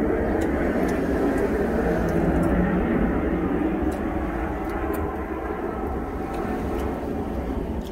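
Motor vehicle noise heard in a truck cab: a steady low rumble under a louder rush that swells about two to three seconds in and slowly fades.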